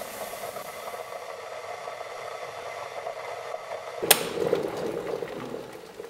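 Electric kettle heating water, hissing steadily. About four seconds in there is a sharp click, the kettle's switch snapping off, and the bubbling swells briefly and then dies away.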